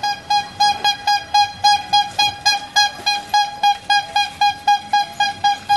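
A bicycle horn tooting over and over in a quick, even rhythm, about four short toots a second, all on the same note.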